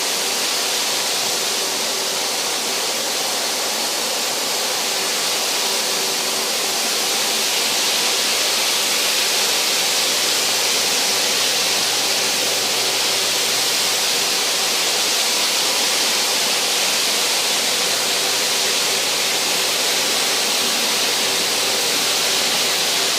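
Dustless-containment orbital floor sander running a graphite mesh sanding screen over hardwood, together with the dust-extraction vacuum it is hooked to. The two make a steady, loud hiss with a faint hum beneath.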